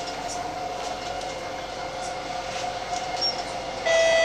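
SMRT C151A train running, heard from inside the carriage: a steady rolling rumble with a steady hum. Near the end a louder, steady ringing tone with higher overtones starts suddenly.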